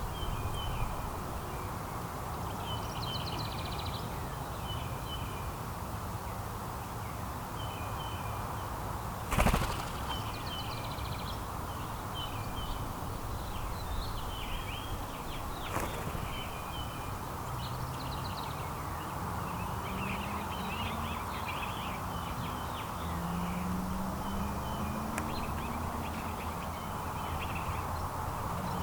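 Small songbirds chirping over and over in short calls, with a steady low background rumble. About nine seconds in there is one sudden loud thump or flutter, and a smaller click follows some six seconds later.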